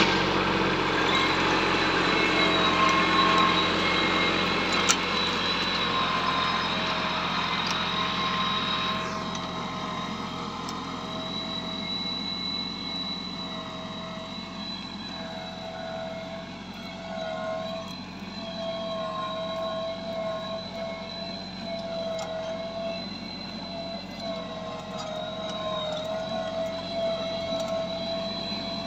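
Massey Ferguson 6028 mini tractor's diesel engine running steadily while pulling a plough; the sound drops in level about nine seconds in.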